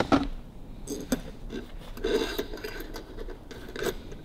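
Steel coil spring of a Harley-Davidson WLA seat post being handled and slid onto the assembly's long steel rod: a few metal clicks and a longer rasping scrape about two seconds in.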